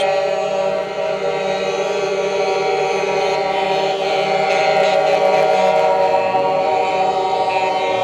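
Truck air horns sounding together in one long, unbroken chord of several steady tones.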